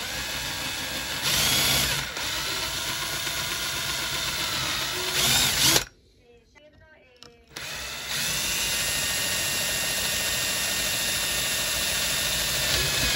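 Electric drill running as a twist bit bores holes through plywood, a steady motor whine that swells briefly under load. It stops about six seconds in and starts again a second and a half later for the next hole, then runs steadily.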